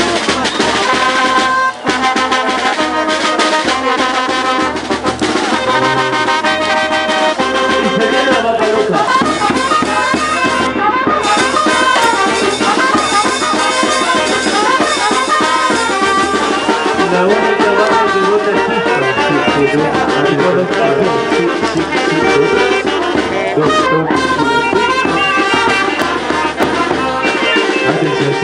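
Brass-led music, trumpets and trombones, playing on without a break.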